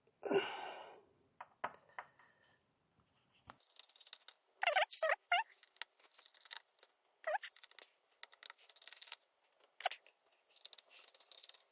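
A small Torx screwdriver working the T5 screws of a Mac mini M4's inner cover: scattered clicks, scrapes and light metallic taps of the tool, screws and casing, with a short rustle about half a second in.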